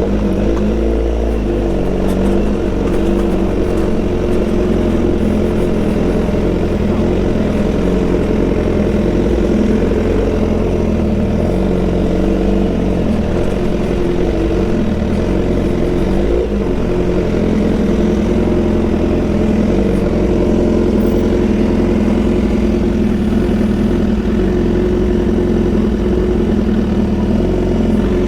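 BMW S1000 XR motorcycle's inline-four engine with a full Akrapovic exhaust, running at fairly steady revs.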